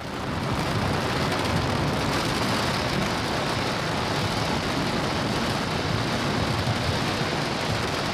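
Falcon 9 first stage, its nine Merlin 1D engines firing at full thrust during ascent: a steady crackling rumble. It swells up in the first half second, then holds steady.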